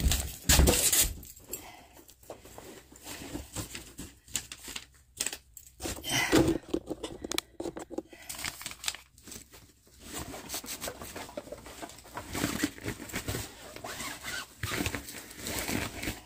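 Irregular rustling, scraping and crinkling of a nylon backpack and bags being handled, with zipper-like rasps.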